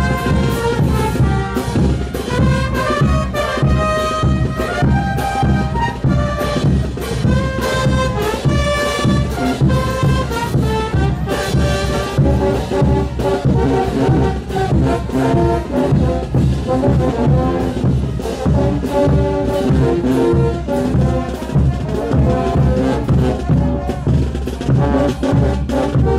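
Brass band playing a folk tune, trumpets and trombones over a steady drum beat.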